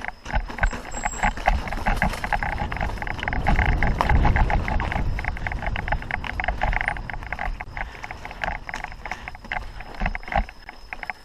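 Avalanche 3.0 mountain bike riding over rough dirt trail: a dense, rapid clatter of the frame and tyres, with a low rumble swelling about four seconds in and easing off after.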